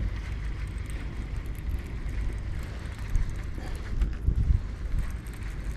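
Wind buffeting the camera microphone: a steady low rumble, with faint scattered ticks above it.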